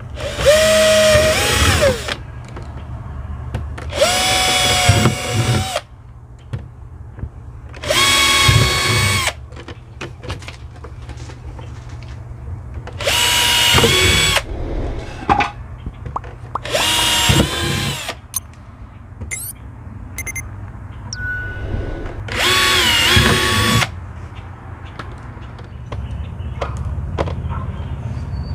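Cordless drill drilling holes through the hard plastic shell of a suitcase, run in six short bursts. Each burst is a whine that winds up and then sags as the trigger is let go.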